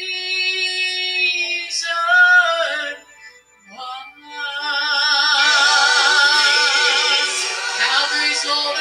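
A woman singing a gospel song solo into a microphone, amplified through PA speakers. She holds a long steady note, moves through a short run, breaks off about three seconds in, then swells into a long held note with wide vibrato.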